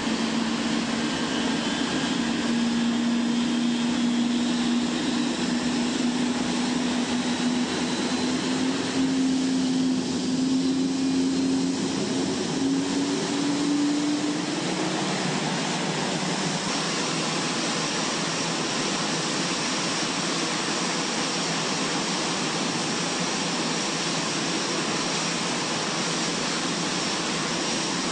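Rolls-Royce Trent 1000 turbofan on a Boeing 787 spooling up after start. A low whine rises slowly in pitch over about fifteen seconds, then the engine settles into a steady running sound with a high whine on top.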